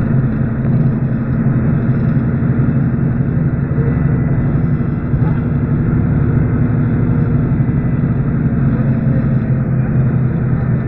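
Cabin noise inside a MAN A11 NG272 city bus on the move: a steady, loud engine hum with road and tyre noise.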